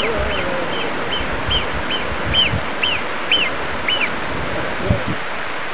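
Alpine marmot alarm whistles: a series of short, sharp whistled calls, about two a second, that stop about four seconds in, over the steady rush of a mountain stream.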